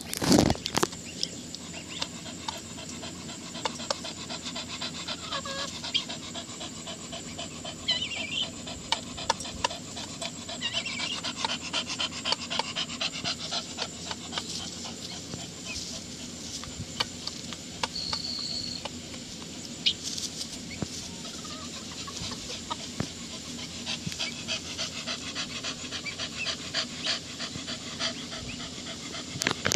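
English bulldog panting in a steady run of quick breaths, with a few short high calls from chickens scattered through.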